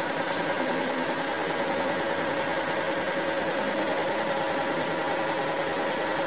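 Electric fan running: a steady motor hum and whir with a few constant tones, unchanging throughout.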